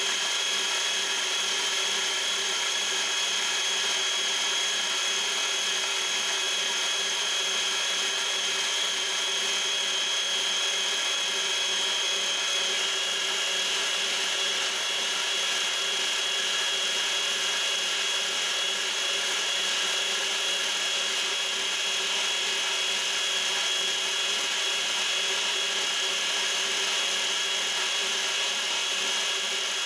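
Kenmore Elite Ovation stand mixer's motor running steadily, its beater creaming butter with sugar being added.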